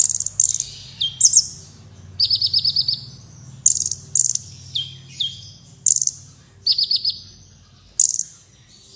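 Kolibri wulung sunbird singing: high, thin chirps and short sweeping notes, each followed by a quick trill of five or six notes, repeated about once a second.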